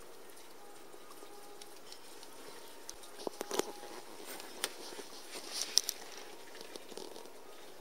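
Dry leaves and twigs under a conifer hedge rustling and crackling: a cluster of sharp crackles about three seconds in and a few more a couple of seconds later, over a faint steady hiss.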